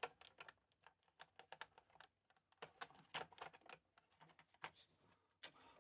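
Rubber keys of a ZX Spectrum 48K pressed one after another in quick, irregular succession, a run of faint soft clicks as each key is tested on the keyboard membrane.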